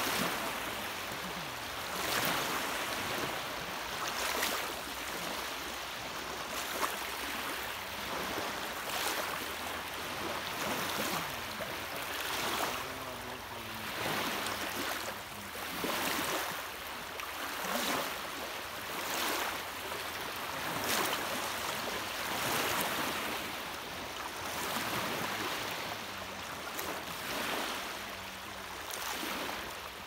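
Small sea waves lapping and breaking in the shallows of a sandy shore: a steady wash of water with a soft splash every couple of seconds as each wave breaks.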